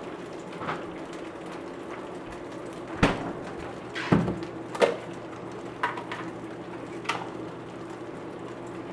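A frying pan sizzling steadily on the stove, with about five sharp knocks and clinks of kitchenware, the loudest about three and four seconds in.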